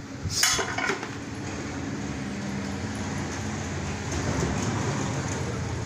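An engine running with a steady low drone that grows slightly louder about four seconds in. A brief clatter of handled parts comes about half a second in.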